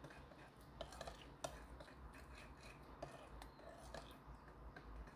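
Spoon stirring a syrupy mix of rice syrup and soy sauce in a glazed ceramic bowl: faint scraping with a few light clicks of the spoon against the bowl.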